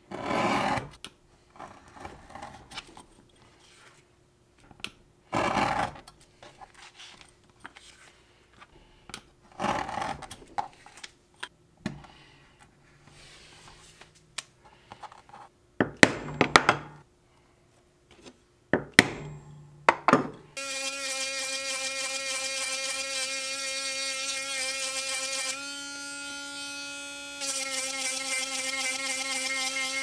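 A blade slicing through leather in three long strokes, then a few sharp mallet strikes, then a small handheld rotary tool with a sanding drum whirring steadily as it sands a leather edge, its note and level shifting for a couple of seconds partway through.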